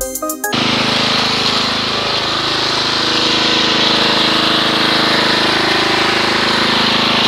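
Gas pressure washer engine running steadily at a constant speed, with a high hiss over its low hum; it comes in about half a second in.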